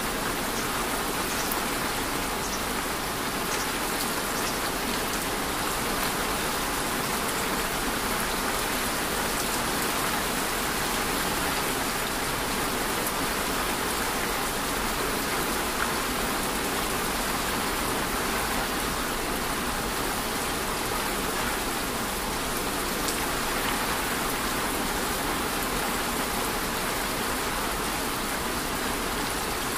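Steady, even rainfall, with scattered faint ticks of individual drops.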